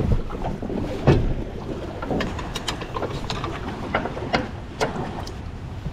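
Boat trailer hand winch being worked: irregular metallic clicks and clunks from the winch, its ratchet and the strap hook, the loudest about a second in.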